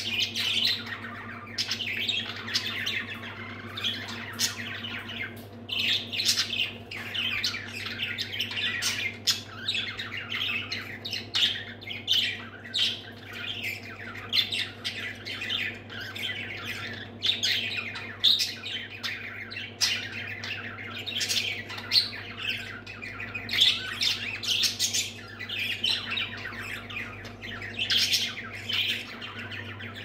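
Several budgerigars chattering, a dense, unbroken stream of short chirping calls.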